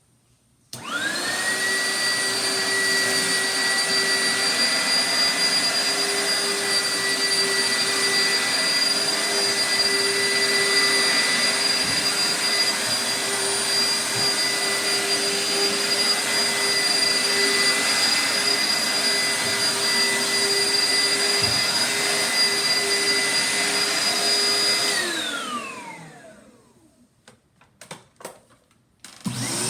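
Oreck Founder Series vacuum cleaner switched on about a second in, its motor whine rising as it spins up, then running steadily with a high whine. It is switched off near the end, the whine falling as the motor winds down. A few clicks follow, and another vacuum starts right at the end.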